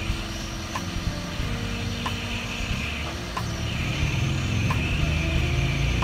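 Hot air rework station blowing steadily, with a low rumble, while a small chip is worked loose from a laptop motherboard. It grows a little louder about four seconds in, and faint short clicks come every half second or so.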